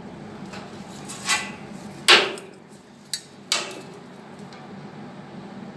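Four sharp metallic clanks with a short ring after each, the loudest about two seconds in: steel tools or pieces of steel being handled and knocked together.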